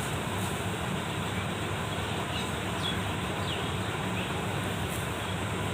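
Diesel farm machinery engine running steadily with a low drone, with a few faint high chirps over it.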